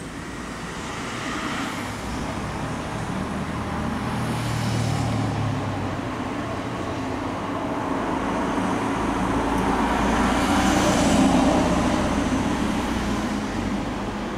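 Road traffic passing: the engine hum of a vehicle swells about four to five seconds in, and a louder vehicle passes, peaking about eleven seconds in.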